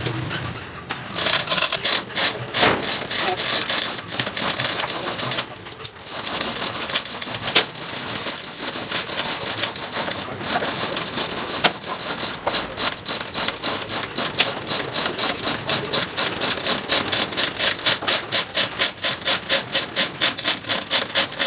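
Sawmill saw cutting through a large trembesi (suar) log, a steady high-pitched whine with a fast, even pulsing that grows more regular toward the end, easing off briefly about five seconds in.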